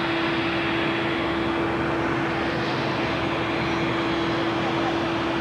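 Airplane engine noise: a steady, even rush with a single held tone running through it.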